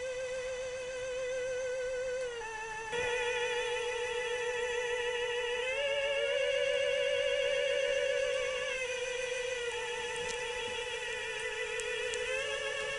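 Ghostly sound effect from 1980s battery-operated animated Halloween figures: an electronic, theremin-like wavering wail that holds one pitch, then slides down or up to another every few seconds. A single click sounds about three seconds in.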